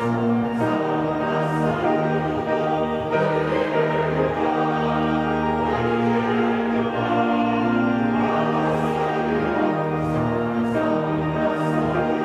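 Mixed church choir singing a hymn in Korean, held notes over steady organ and piano accompaniment.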